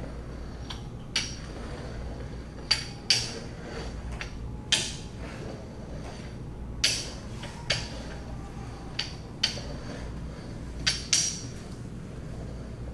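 Rolling pin knocking and clicking against a floured wooden table as bread dough is rolled out: about ten sharp, irregular knocks, some with a short ring.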